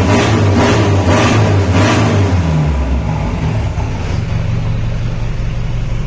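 Chevrolet S10's 2.8 diesel engine running through a straight-through exhaust with a 3-inch pipe and 4-inch tip, a deep rumble. It is revved in about four quick throttle blips, then drops to a steady idle about two and a half seconds in.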